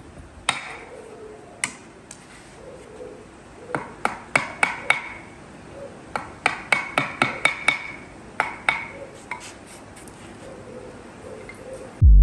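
Hammer blows: about seventeen sharp strikes in irregular runs, with a quick series of taps through the middle, several with a brief ringing tone.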